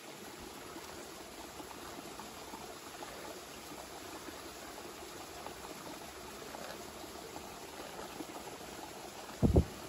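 Steady sound of running, swishing water. A short, loud knock about half a second before the end.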